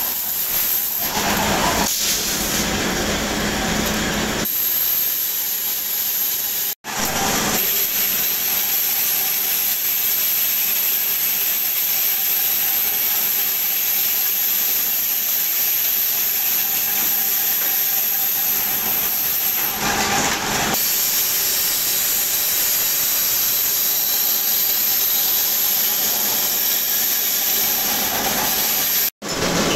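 Workshop machinery processing steel rod, running steadily: a continuous hiss with a constant high whine. It drops out for an instant twice.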